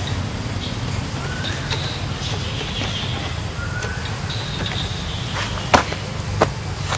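Outdoor tree-canopy ambience: a steady low rumble under a steady high insect drone. There are two short rising bird chirps, and two sharp clicks near the end.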